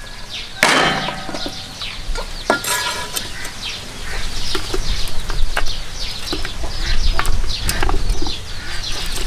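Chickens peeping and clucking over and over, high short falling calls, with a couple of ringing metal clinks of cookware in the first few seconds. A low rumble builds partway through.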